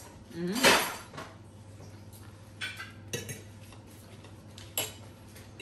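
A metal fork clinking and scraping on a dinner plate during a meal, as a few separate clinks. A brief louder noise comes about half a second in, and a low steady hum runs underneath.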